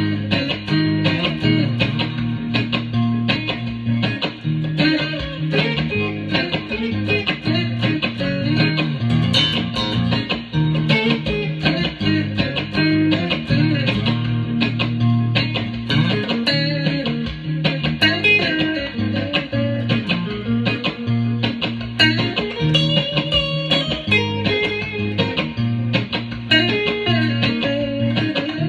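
Guitar-led instrumental music, an electric guitar playing over sustained low bass notes, from a home demo recording.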